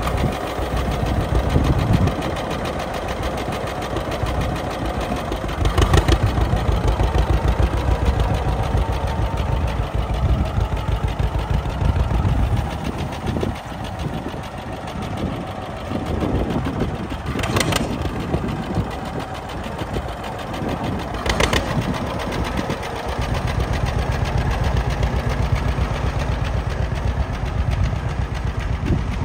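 1951 John Deere Model A tractor's two-cylinder engine running as the tractor is driven, a rapid, even train of exhaust pulses. It swells louder for several seconds about a fifth of the way in and again near the end.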